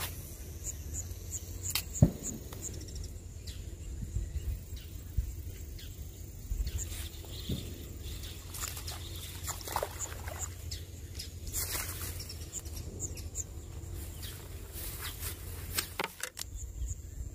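Outdoor waterside ambience: a steady low rumble with scattered short, high chirps and one sharp knock about two seconds in.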